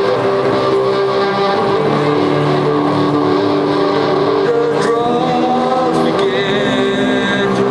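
Loud, distorted music of poor sound quality: held notes over a dense, unchanging wall of sound, with the pitches shifting about five and six seconds in.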